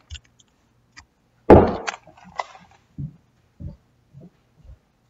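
A Nerf blaster fired at a wall with a Snap-It popper taped to the dart's tip: one sharp bang about a second and a half in, followed by a small click and a few faint knocks.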